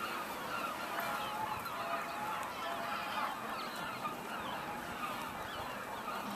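Many gulls calling at once: a steady chorus of short, overlapping falling cries.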